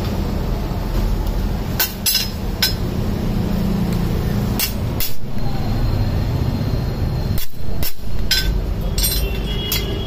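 Irregular sharp metal taps and clicks, about ten of them, as a metal belt buckle is handled and worked on, over a steady rumble of street traffic.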